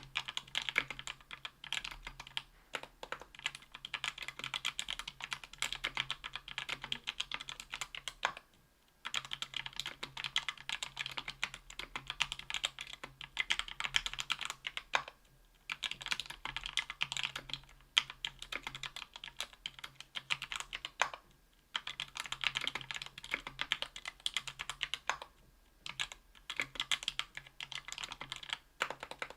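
Typing on a Tofu 60% aluminium keyboard with lubed Thic Thock Marshmallow 68 g linear switches, an aluminium plate and GMK keycaps. Rapid keystrokes come in runs of several seconds, broken by short pauses.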